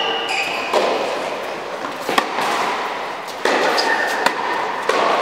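Tennis rally on an indoor hard court: sharp racket-on-ball strikes and ball bounces every second or two, ringing in a large hall.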